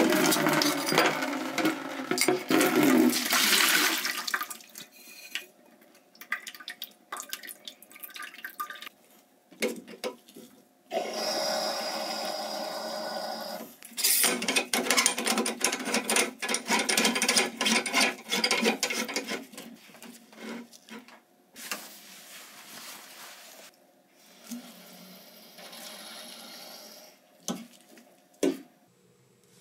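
Dirty water pouring and splashing into a plastic bucket as the side-stream filter's stainless housing is taken off and emptied, loudest at the start, with a second spell of running water about a third of the way in. Between them come scattered clinks and knocks of the metal housing being handled and screwed back on.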